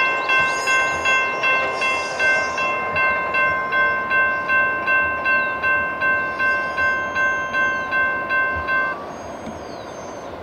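Railroad grade-crossing bell ringing, about three strokes a second, over the rumble of a freight train; the bell stops abruptly about nine seconds in, leaving the train noise.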